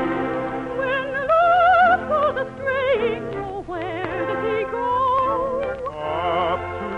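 Operatic-style voice with a wide vibrato over an orchestral accompaniment, the opening of an operetta song.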